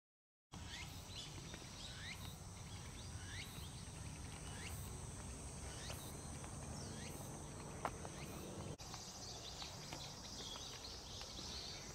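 Faint outdoor ambience of insects trilling steadily, with a short rising chirp repeating about once a second. It starts after a moment of silence.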